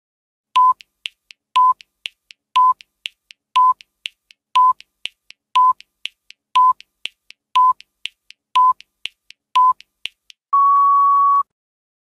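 Countdown timer sound effect: ten short electronic beeps one second apart with fainter ticks between them, ending in a longer, slightly higher beep that signals time is up.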